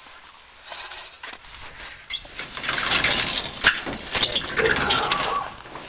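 A metal garage door being opened: a sharp click about two seconds in, then a rattling run with two loud clanks in the middle.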